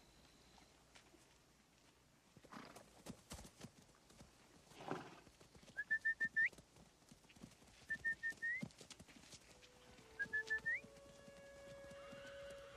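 A man whistles to call his horse: three short whistled phrases, each a few quick notes ending in a rising slide, over the thuds and shuffling of a horse herd moving on the grass.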